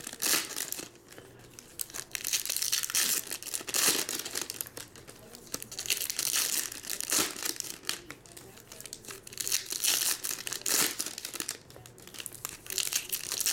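Foil trading card pack wrappers being torn open and crinkled by hand. They come in irregular bursts of ripping and crinkling with short lulls between.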